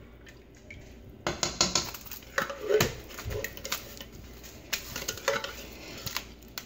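Metal spoon clinking and scraping against an enamelled stock pot and an opened soup can as condensed cream of chicken soup is spooned and stirred into broth: a quick run of clicks and clinks starting about a second in.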